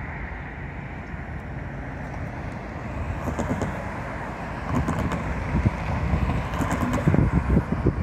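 An SUV drives past close by, its engine and tyres rising to a peak around the middle. A low rumble grows louder near the end.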